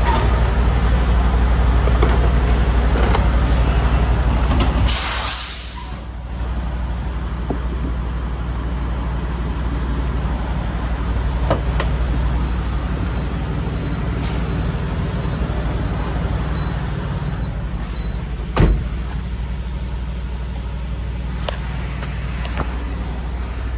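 Semi-truck's diesel engine idling with a steady low hum. About five seconds in comes a short loud hiss, and near the middle there are faint, evenly spaced beeps. Scattered clicks and handling knocks lead up to one sharp thump about two-thirds of the way through as the cab door shuts.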